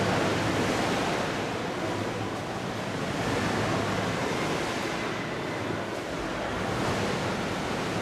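Steady rushing and splashing of choppy waves in a wave pool, swelling and easing a little in loudness.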